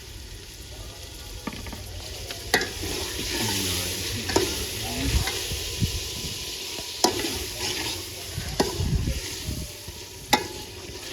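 Chicken frying and sizzling in a pot of hot oil and masala while it is stirred, with five sharp knocks of a spoon against the pot.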